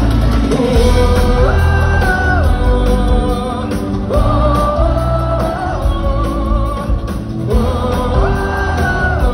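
Live pop concert music: a band with heavy bass under a sung melody of long, gliding notes, heard from within the audience.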